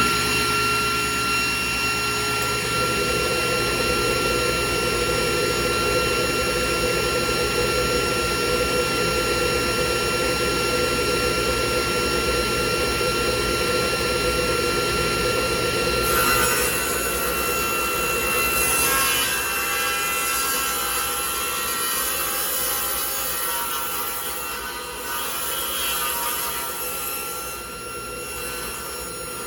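Table saw switched on and running steadily with a whine. About sixteen seconds in the steady tone gives way to rougher cutting noise as the blade rips a rough-sawn board.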